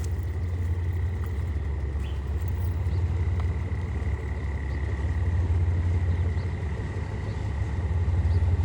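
Diesel train engine running steadily: a deep, even low rumble with a faint steady high whine above it.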